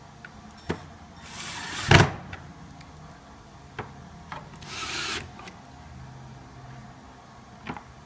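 Cordless drill driving screws into cedar boards in two short runs: the first, about a second in, builds up and ends in a sharp knock; the second comes around five seconds in. Light clicks of handling fall between them.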